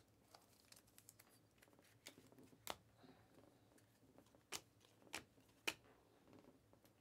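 Faint handling of Panini Mosaic trading cards: soft sliding and rustling as the cards are flipped through, with a few sharp snaps and taps as cards are flicked and set down. The loudest taps come near the middle and toward the end.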